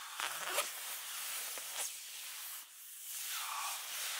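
Rustling and swishing of a down sleeping bag's nylon shell as a person sits up and climbs out of it, with a few short scrapes.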